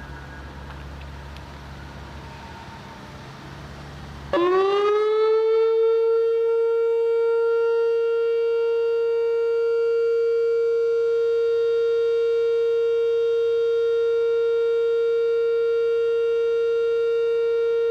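Whelen electronic outdoor warning siren sounding its steady Alert tone, the signal used mainly for tornado warnings. After about four seconds of low hum, the tone starts about four seconds in with a quick rise in pitch, then holds one steady, loud pitch.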